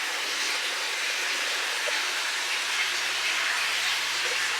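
Steady indoor room noise: an even hiss with a faint low hum underneath.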